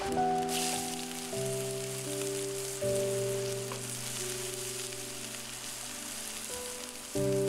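Sliced onion and minced garlic sizzling in a hot frying pan. The hiss starts just after they are scraped in and carries on steadily. Background music of slow, held notes plays throughout.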